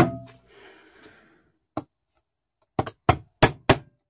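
Sharp metal taps on a turbocharger as a part is tapped down into its seat with a hand tool: a loud knock at the start, another about two seconds in, then a quick run of about five taps near the end, some with a short metallic ring.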